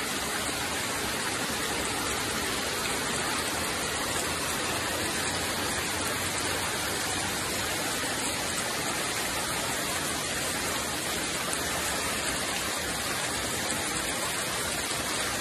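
Steady, even rush of water with no breaks.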